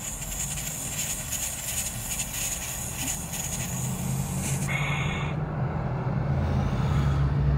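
A hit drawn through a Puffco Peak Pro electronic dab rig: air rushing and water bubbling in the glass attachment for about four and a half seconds, with a short breath just after. A low steady hum builds toward the end.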